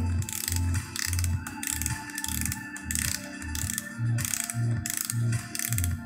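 Music with a steady bass beat, about two beats a second, and a ticking high end, played by a Pioneer DEH-6350SD car stereo through two 6-inch speakers.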